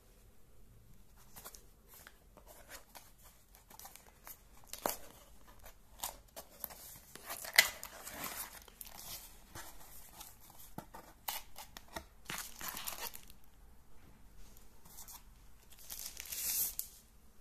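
A small cardboard box being handled and opened: irregular scraping, tapping and sliding of cardboard flaps, with one sharp snap about halfway through. Near the end a plastic bag crinkles as it is handled.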